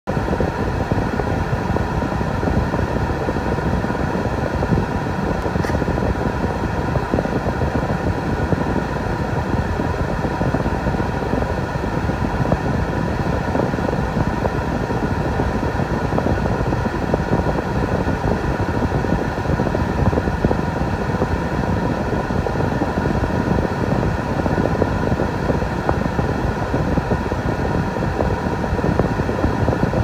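Steady hum of a parked vehicle heard from inside its cabin: the engine idling and the blower fan running.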